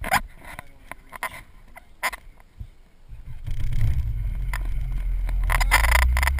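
Yamaha jet ski engine coming in about halfway through and then running steadily as a low hum. Before it there are only scattered light knocks and clicks.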